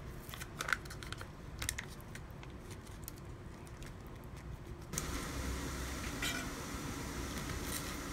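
Plastic sachet of satay hot-pot soup base crinkling as it is squeezed out into an empty electric hot pot, with a few sharp crackles in the first three seconds. About five seconds in, a louder steady hiss takes over.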